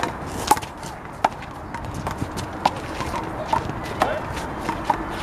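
Big blue handball being slapped back and forth in a one-wall handball rally: sharp smacks of the ball off players' hands and the wall, about six over a few seconds at an irregular pace.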